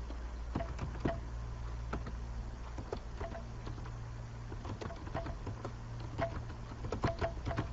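Faint, irregular clicks of keys being typed on a computer keyboard, over a steady low electrical hum.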